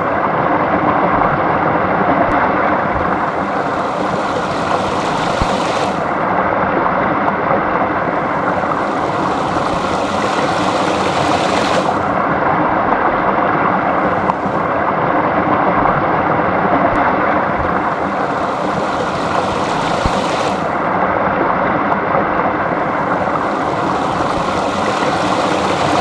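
Small stream flowing and burbling, a loud, steady rush of water.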